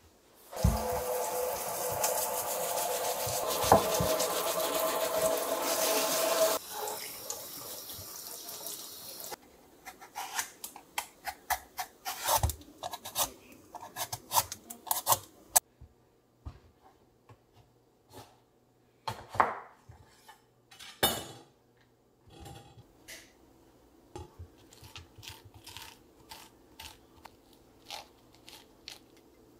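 A loud, steady rubbing noise for about six seconds. Then a vegetable peeler shaves the skin off a raw pumpkin in quick strokes, about three a second. Later a metal spoon scrapes seeds and stringy pulp out of a halved pumpkin in scattered scrapes and clicks, with two louder knocks.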